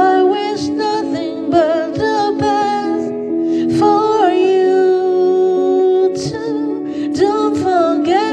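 Music: a woman singing over a sustained accompaniment, with no words made out.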